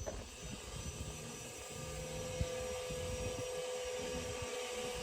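A steady engine or motor drone at a constant pitch, swelling slightly after about two seconds, over an uneven low rumble.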